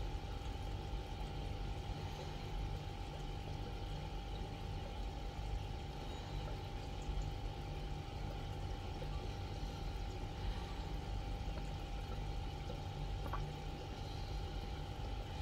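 Steady running water-and-motor noise of an aquarium filter or pump: a low rumble and a constant whine, with water trickling over it.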